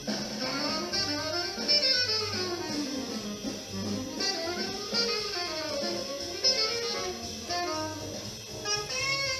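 Intro music: an instrumental jazz piece with a saxophone-like lead melody over guitar.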